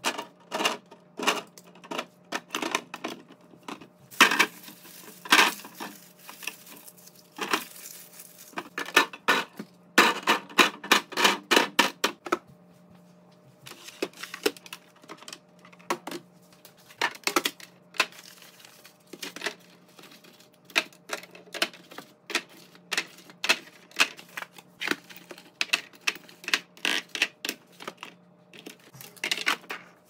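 Fruit, onions and eggs being set one by one into clear plastic fridge bins and a plastic egg tray: an irregular run of light clicks and knocks against the plastic, denser for a couple of seconds about ten seconds in.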